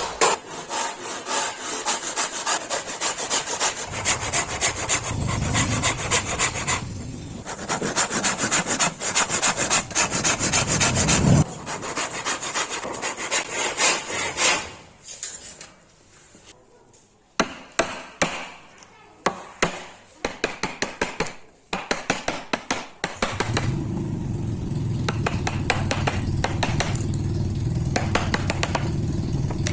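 A hand tool worked back and forth on wood, sawing or rasping in rapid repeated strokes, with two short pauses. Near the end a steady machine-like running sound takes over.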